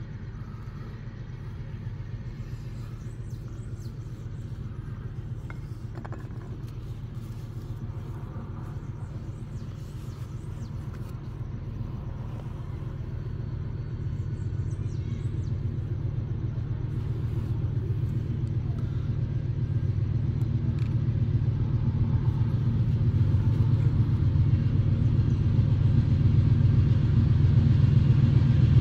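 GE BB40-9WM (Dash 9) diesel-electric locomotive approaching at the head of an empty ore train, its low engine rumble growing steadily louder.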